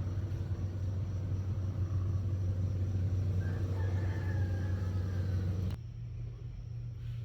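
Steady low rumble with a drawn-out, wavering call over it from about three and a half to five seconds in. Near the end the rumble cuts off abruptly to a fainter steady hum.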